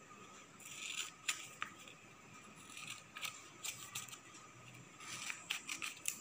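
Faint snips of scissors cutting a folded paper sheet, mixed with paper rustling and a few light clicks of tools set on the table.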